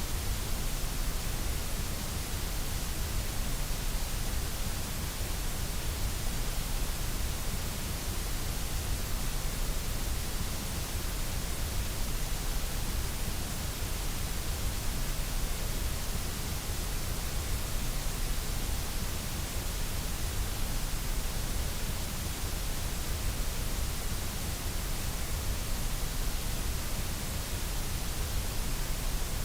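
Continuous synthetic white noise, a steady even hiss that never changes, with a deep rumble underneath.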